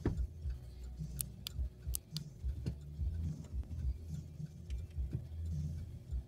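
Uneven low background rumble picked up by an outdoor camera's microphone, with a handful of sharp ticks from about one to three seconds in.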